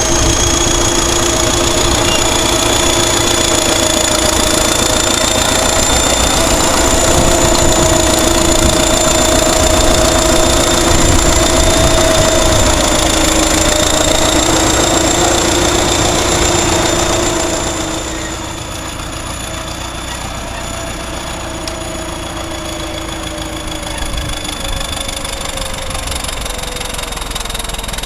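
Caterpillar D7 bulldozer's diesel engine running, with a steady high-pitched turbocharger whistle over the engine note. About two-thirds of the way through, the engine note drops and gets quieter; the whistle carries on and slowly rises in pitch near the end.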